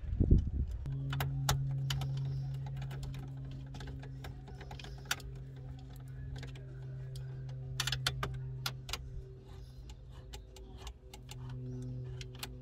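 Scattered light clicks and taps of small screws and plastic dash trim being handled, over a steady low hum that starts about a second in.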